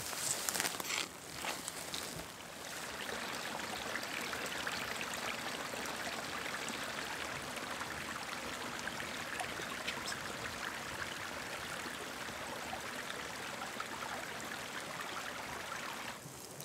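Mountain creek running steadily, an even rush of water. A few short knocks and rustles sound in the first couple of seconds before the water sound settles in.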